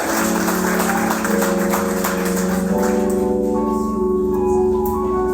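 Keyboard playing slow, sustained organ-like chords, notes held and added one over another, while applause dies away over the first few seconds.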